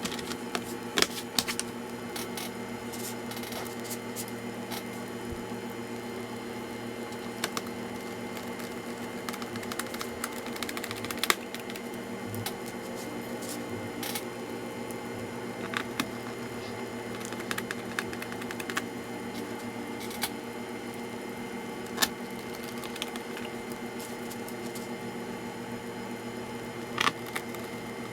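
Scattered light clicks and taps of small plastic and metal parts being handled while a laptop is worked on by hand, over a steady electrical hum. A few sharper clicks stand out about a second in and near the end.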